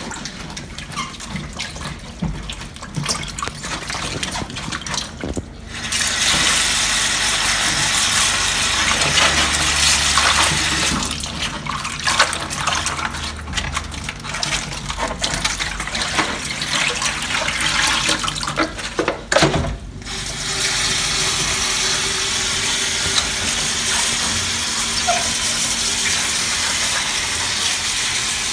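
Kitchen tap running into a stainless steel sink while cabbage leaves are rinsed in a plastic bowl under it. Light knocks and rustling of the leaves and bowl come first; the water starts about six seconds in and has a short break about two-thirds of the way through.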